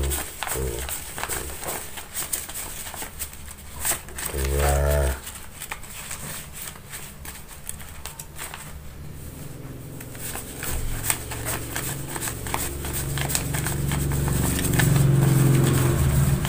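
Paper banknotes rustling and flicking as a thick stack is counted through by hand, many quick papery clicks. A short low pitched call about four seconds in, and a longer, louder low drawn-out call through the second half, are the loudest sounds.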